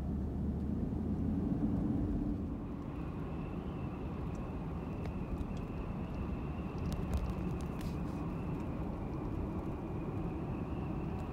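Vehicle driving, heard from inside the cab: a steady engine hum and road rumble. A stronger low hum in the first couple of seconds eases off, a faint steady high whine comes in about three seconds in, and there are a few light ticks midway.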